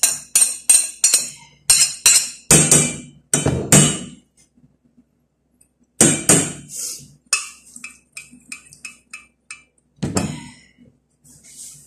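Metal spoon clinking and scraping against a stainless steel cooking pot while food is spooned into it: quick runs of light taps, about four a second, at the start and again midway, broken by several heavier knocks.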